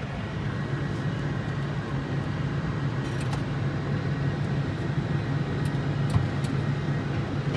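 Tractor engine running at a steady drone, heard from inside the cab, with a few light clicks and knocks partway through.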